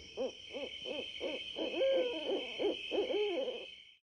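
A bird hooting in a quick series of short rising-and-falling calls, about three a second, over a steady high chirr; both stop shortly before the end.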